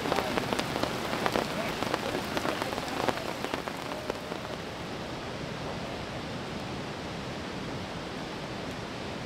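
Rain pattering, with many sharp drops hitting close by for the first few seconds, then settling into a steady, even hiss.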